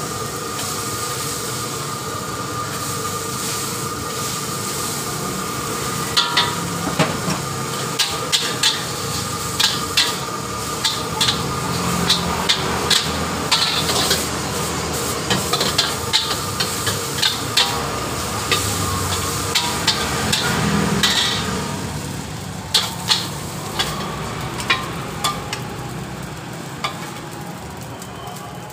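Rice vermicelli stir-frying in a steel wok: a steady sizzle, with a metal spatula clanking and scraping against the wok again and again, about one to two strikes a second, from a few seconds in until near the end.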